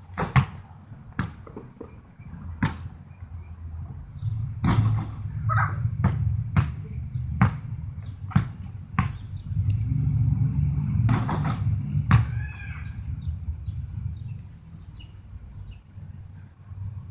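Basketball bouncing on hard outdoor ground: about a dozen irregular bounces, the loudest around five and eleven seconds in, over a steady low rumble of wind on the microphone.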